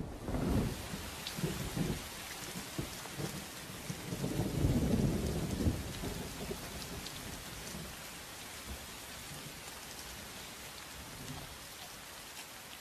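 Heavy tropical rain falling steadily, with deep rolls of thunder about half a second in and again, loudest, from about four to six seconds; the rumbling then dies away under the rain.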